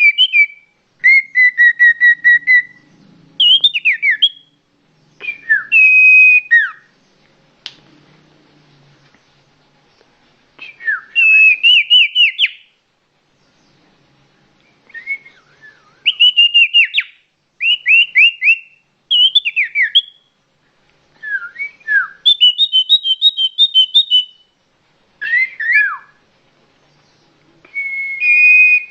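A songbird singing loud, clear whistled phrases: repeated down-slurred notes and quick trills in bursts of one to two seconds, with short pauses between them.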